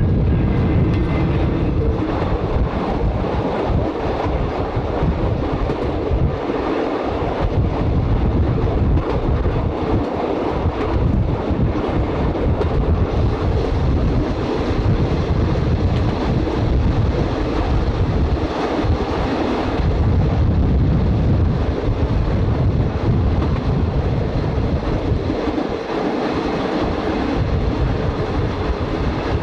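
A 1920s CPH 'Tin Hare' diesel railmotor running along the line, heard from an open side window: a steady engine drone and the wheels running on the rails, with wind on the microphone.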